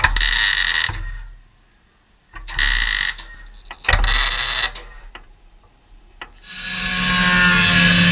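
Three short bursts of MIG welding, tack welds of under a second each, with faint clicks between them as a new steel repair piece is welded into the Beetle's rear panel. About six seconds in, a steadier, louder sound with several held tones takes over.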